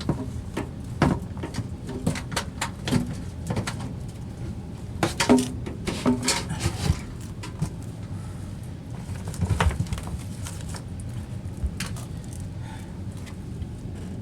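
Irregular knocks and clunks of the sewage pump's float switch and cover being handled and fitted into place, over a steady low hum.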